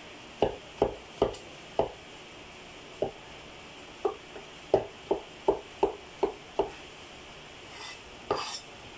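Large kitchen knife chopping peeled potatoes into cubes on a thick wooden chopping block: about a dozen sharp knocks of the blade on the wood in two uneven runs, then a short scraping noise near the end.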